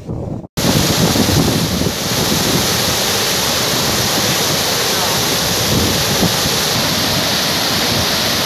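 Floodwater pouring over a dam's spillway gates: a loud, steady rush of falling water that cuts in suddenly about half a second in.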